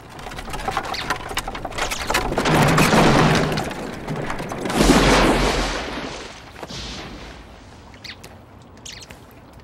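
Cartoon crash sound effect: a long, noisy, rumbling crash that swells to two peaks in the middle and fades away, followed by a few short clicks.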